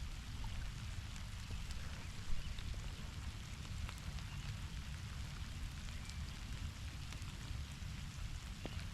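Steady heavy rain falling, with scattered drops ticking close by over a low, even rumble; one tick a little over two seconds in stands out.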